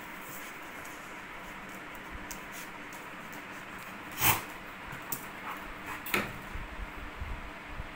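A puppy and an adult dog play-fighting: a single sharp, brief dog sound about halfway through, another shorter one a couple of seconds later, then scuffling and bumping toward the end.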